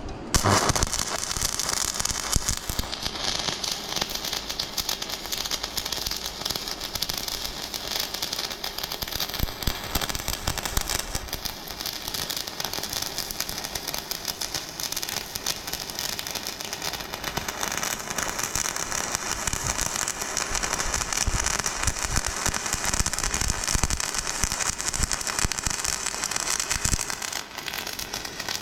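Stick-welding arc crackling and sputtering steadily as a bead is run. It strikes abruptly just after the start, and near the end there is a brief break before the arc picks up again.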